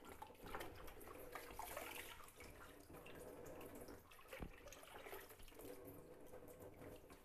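Faint splashing and dripping as wet red amaranth greens are lifted by hand out of a bucket of washing water into a plastic colander, with a tap running in a thin trickle.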